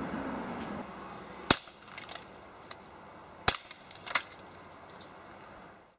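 Beretta PX4 Storm CO2 air pistol firing .177 pellets at a green glass beer bottle: two sharp cracks about two seconds apart, each followed by lighter clinks of glass pieces as the bottle breaks apart.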